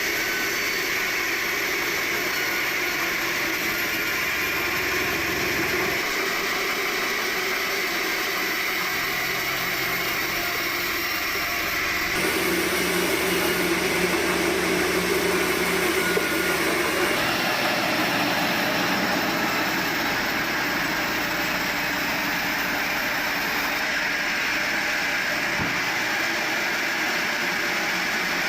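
Sawmill machinery running: a steady mechanical hum with a whine. The tone shifts abruptly about twelve seconds in and again about five seconds later.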